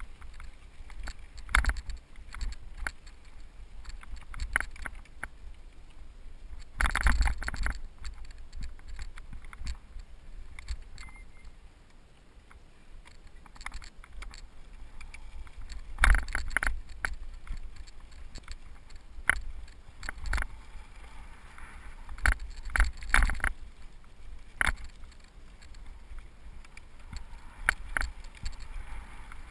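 Cyclocross bike riding fast over a rough dirt-and-gravel trail: the tyres running over loose stones, with the bike rattling and knocking over bumps and a steady low rumble of wind on the microphone. The hardest jolts come about a quarter of the way in and just past halfway, with a run of smaller knocks after that.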